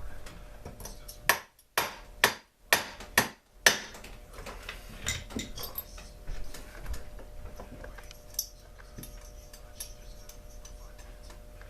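Hand work on a chainsaw on the bench: six sharp taps or knocks about two a second, starting a little over a second in, then scattered lighter clicks of tools and parts being handled.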